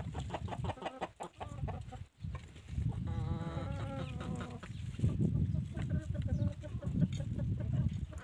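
A flock of chickens calling, with one long, drawn-out call about three seconds in, over a low rumble.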